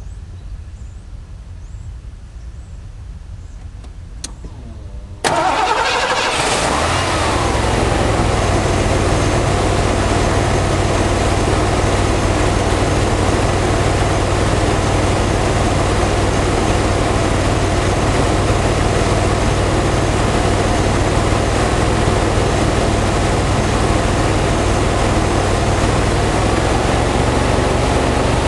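1984 Ford LTD Crown Victoria's 5.0 L V8 starting suddenly about five seconds in, its revs flaring briefly and falling back, then idling steadily.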